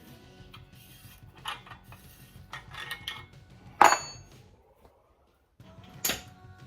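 Metal suspension parts and tools being handled, with scattered light clinks and one loud, sharp metallic clank that rings briefly about four seconds in.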